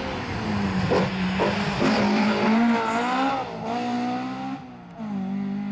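Rally car engine driven hard through corners, the revs climbing and dropping several times as it accelerates and shifts, with tyre noise mixed in.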